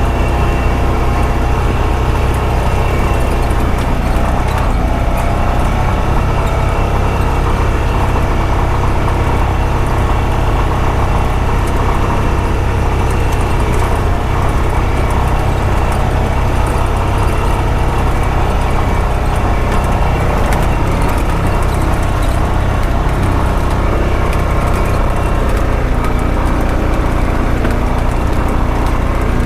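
Honda Pioneer 520 side-by-side's engine running steadily as it drives along a logging road.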